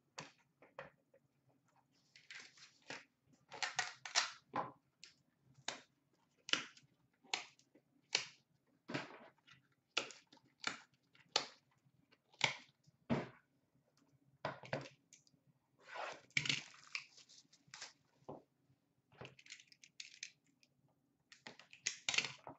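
Crisp, irregular clicks, snaps and rustles of trading cards, plastic card holders and card boxes being handled, about one or two a second with short flurries.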